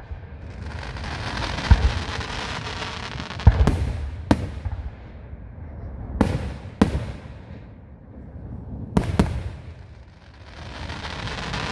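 Aerial fireworks bursting: about seven sharp booms, two of them coming in quick pairs, with a long crackling hiss filling the gaps between them.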